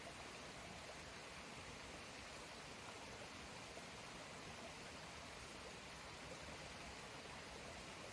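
A forest stream running: a faint, steady rush of flowing water.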